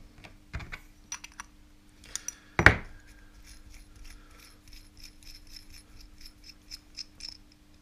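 Small metal parts clicking and rubbing as a nut is turned off the threaded shaft of a scooter throttle potentiometer by hand. There is one louder knock about two and a half seconds in, and a run of light, quick ticks near the end.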